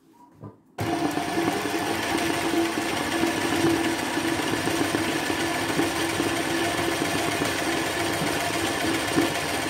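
Sewing machine running steadily in free-motion embroidery, stitching a satin fill, with a constant hum; it starts up about a second in.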